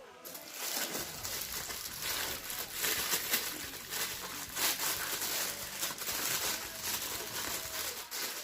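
Toy packaging being handled by hand: plastic and paper crinkling and rustling with many small irregular crackles.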